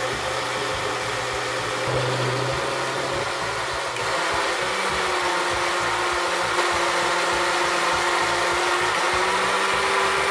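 Electric mixer grinder running steadily, grinding soaked sprouted moong dal and rice with water into a smooth batter. Its motor note drops a little about four seconds in.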